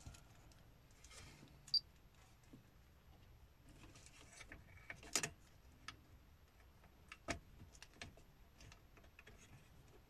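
Faint, scattered small clicks and taps of plastic parts being handled as the bulb holder is pushed into place on the car's cigarette lighter socket and dash trim panel, with a few sharper clicks among them.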